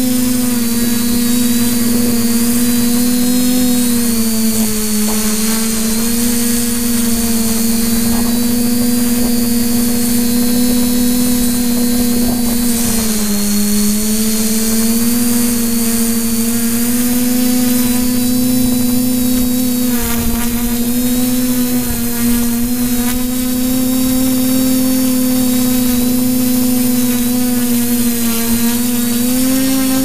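The TBS Discovery quadcopter's brushless motors and propellers buzz steadily, heard from its onboard camera. The pitch wavers and dips briefly a little under halfway through.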